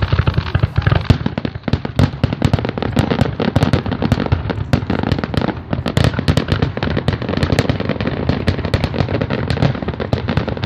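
Fireworks grand finale: many shells bursting in a dense, rapid barrage, bangs overlapping several times a second without a break.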